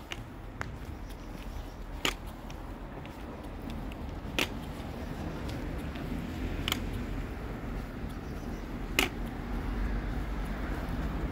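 Steady low rumble of a town street, with four sharp clicks evenly spaced a little over two seconds apart.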